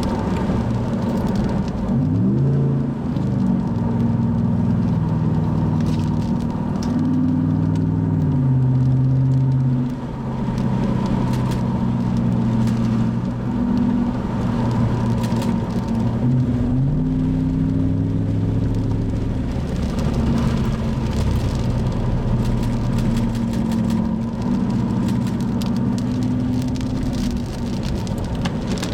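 Car engine pulling hard twice, its pitch climbing and then holding steady as the car drives on at speed, over a steady road and wind hiss.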